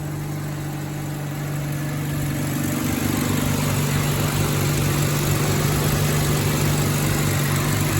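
Rover P4 80's four-cylinder engine idling steadily after being fitted with new ignition cables, getting a little louder from about two seconds in.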